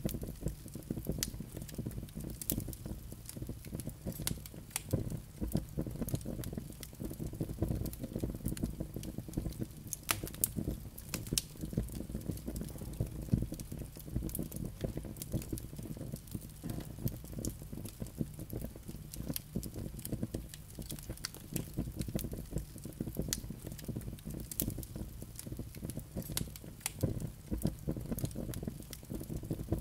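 Wood logs burning in a fireplace: a steady low rumble of flames with frequent sharp crackles and small pops.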